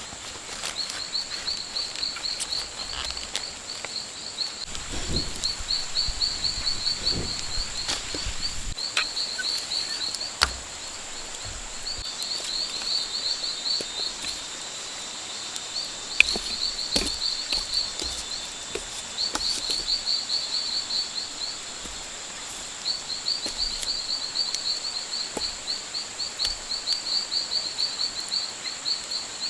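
Rainforest ambience: a steady high-pitched insect drone, with repeated runs of rapid high chirping that start and stop every few seconds. A few sharp knocks stand out, one about a third of the way in and one a little past the middle.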